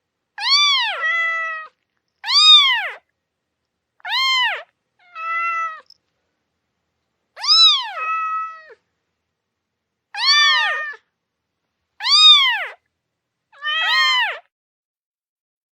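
Two kittens meowing back and forth: high mews that rise and fall in pitch, about eight of them, several answered or overlapped by a lower, flatter mew, with short silences between calls.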